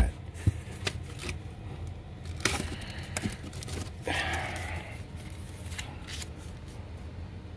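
Rummaging through unboxed parts and packing material: scattered clicks and scrapes of items being handled, with brief rustles of paper or plastic about two and a half and four seconds in, over a low steady hum.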